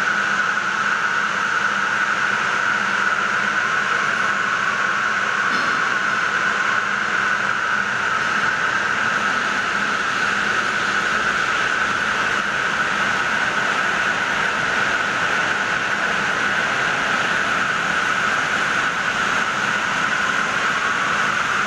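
Lohia LSL620 circular loom running at a constant speed while weaving raffia tape fabric. It makes a continuous mechanical whir with a steady high-pitched whine.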